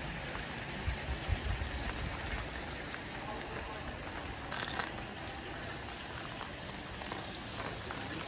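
Steady hiss of light rain and running water on wet pavement, with a few low thuds about a second in.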